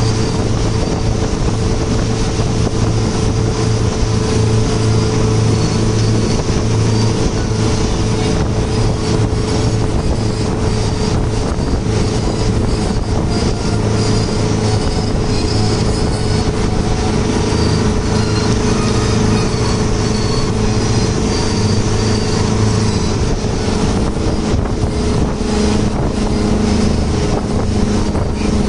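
Speedboat running at speed: a steady engine drone over rushing water and wind.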